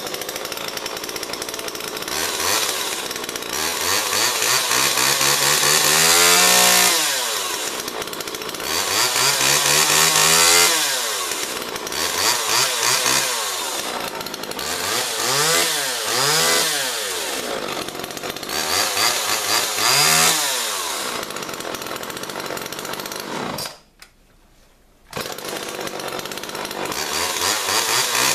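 Homelite XL two-stroke chainsaw with a 14-inch bar running and being revved up and let back down to idle again and again. The sound breaks off for about a second near the end, then the saw runs and revs again.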